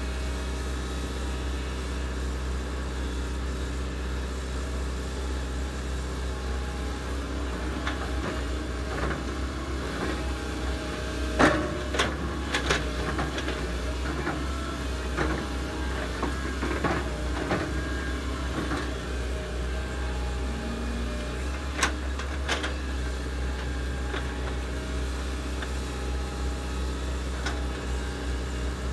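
Komatsu PC130 hydraulic excavator's diesel engine running steadily under working load, with sharp clanks and knocks from the bucket and arm digging, clustered in the middle and twice more a few seconds later.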